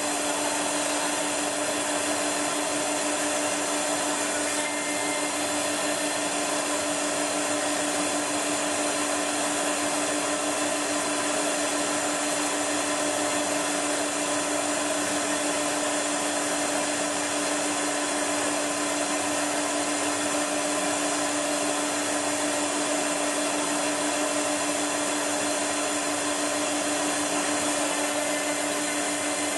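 Steady electric motor whir with a constant hum in the robot cell, unchanging in pitch and level.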